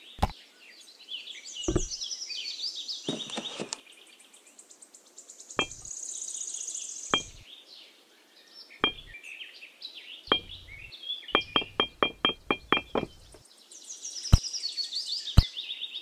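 Small birds chirping, with scattered sharp knocks and a quick run of taps, about five a second, around two-thirds of the way through.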